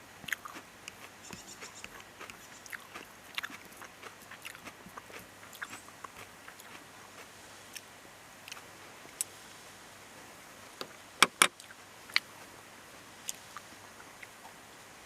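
Irregular small clicks and taps over a faint background hiss, with two sharp, louder clicks in quick succession a little past the middle.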